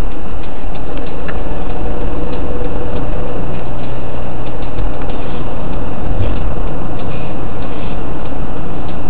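Car driving at road speed, its engine and tyre noise picked up loud and distorted by a dashcam microphone inside the car, with scattered small clicks and rattles.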